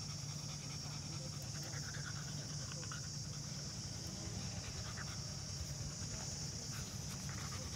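A young Belgian Malinois panting steadily while being stroked, over a steady high drone.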